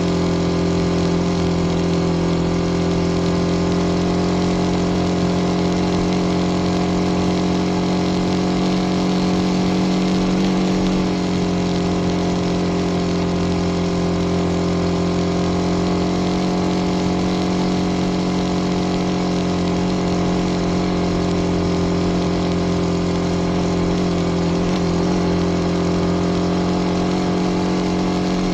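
Small motorbike engine running at a steady speed while being ridden, a constant engine note that eases slightly about eleven seconds in.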